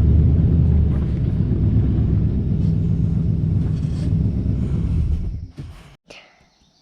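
A vehicle engine running with a low, steady rumble that fades out about five and a half seconds in.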